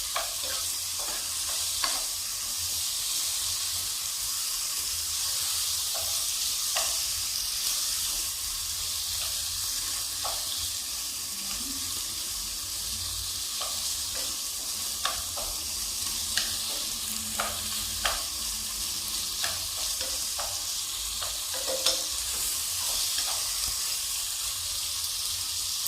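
Bone-in chicken pieces frying in hot oil in a pan: a steady sizzle with scattered sharp clicks now and then.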